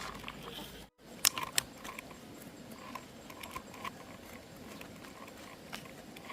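Scattered light clicks and taps of a small plastic toy truck being handled and pushed along with a load, over faint background noise.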